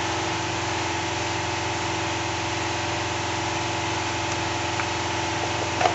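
Steady machine hum with several steady tones, unchanging throughout, and a faint tick about five seconds in.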